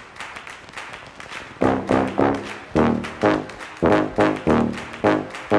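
Music led by brass instruments: after a quieter opening, loud punchy brass notes come in about one and a half seconds in and repeat about twice a second in a steady beat.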